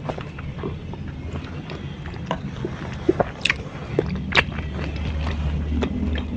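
Close-up eating sounds: a person biting and chewing lalapan (raw vegetables) and grilled chicken, with scattered sharp crunches. A steady low hum runs underneath.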